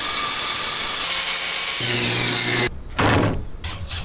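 DeWalt circular saw cutting through a wooden board along a straight-edge guide, running steadily and then cutting off suddenly about two and a half seconds in. Short bursts of a DeWalt cordless drill follow.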